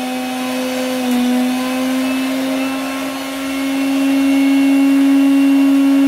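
Electric kitchen mixer grinder running steadily as it grinds coriander, green chillies and ginger into a green masala paste. Its motor whine rises slightly in pitch and gets a little louder about four seconds in.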